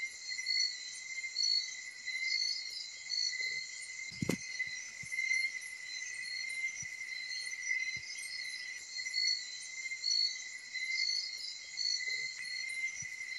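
A night chorus of crickets and other insects: one steady high trill, with several pulsing chirping calls overlapping above it. A single dull bump comes about four seconds in.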